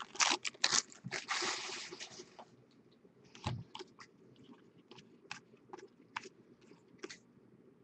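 Foil wrapper of a baseball card pack crinkling as the cards are pulled out of it, for about the first two and a half seconds. Then the cards are flipped one by one, with soft separate flicks roughly twice a second.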